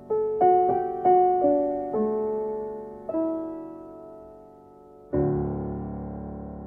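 Background music: a piano plays a short run of single notes, then a fuller chord about five seconds in that rings out and slowly fades.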